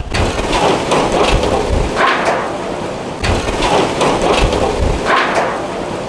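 Hurricane-force wind driving heavy rain, a dense rushing noise that surges in gusts every second or two.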